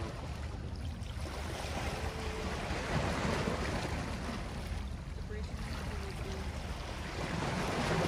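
Small waves lapping and washing against shoreline rocks, swelling about two seconds in and again near the end, over a steady low rumble.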